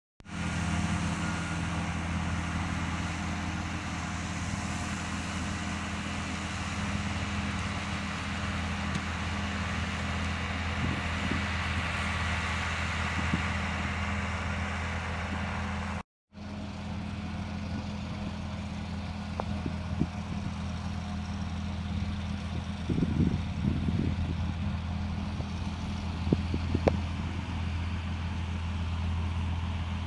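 Reform Mounty slope tractor's engine running steadily while mowing, a constant drone. It breaks off for a moment about halfway, and a few light knocks come near the end.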